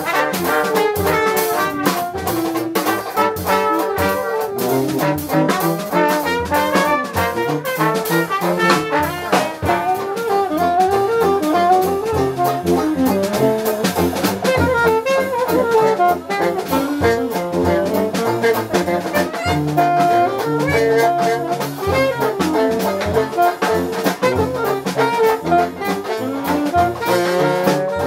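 Live Dixieland jazz band playing: saxophone, trumpet, trombone and tuba weaving melody lines over a drum kit's steady beat.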